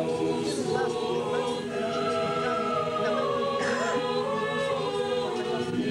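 An a cappella choir singing a slow liturgical chant, many voices holding long notes together.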